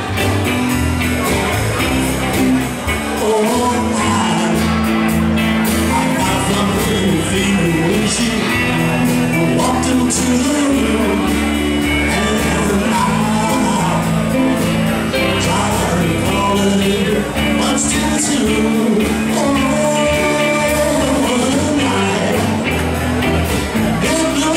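A live rock-and-roll band playing, with electric guitars, electric bass and drums under a sung vocal line.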